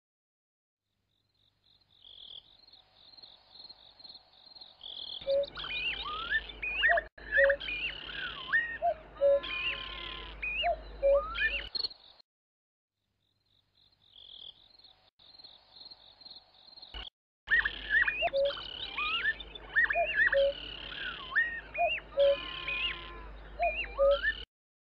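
Recorded nature ambience: birds chirping over a pulsing high trill. The same stretch plays twice, each time cutting off suddenly, with a few seconds of silence between.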